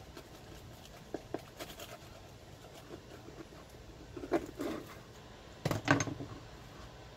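Serrated knife sawing through a griddled sandwich on toasted rye on a plastic cutting board: faint crisp crunches of the crust, with a louder crunch and clatter near the end as the halves come apart.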